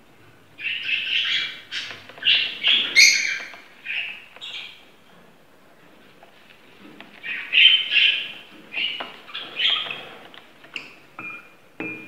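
Young parrot chicks giving harsh begging calls while being hand-fed, in two bouts of repeated calls with a short lull between them.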